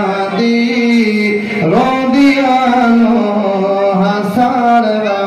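A man chanting a naat, one voice holding long notes that slide between pitches with short breaks.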